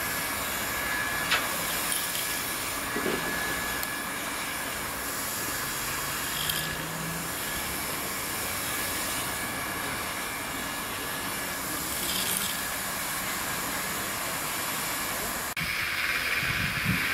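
Handheld hot-air plastic welder blowing steadily while the seams of a PVC pool liner are welded: a continuous hiss with a thin steady whine. Shortly before the end a cut brings a louder background with a few low knocks.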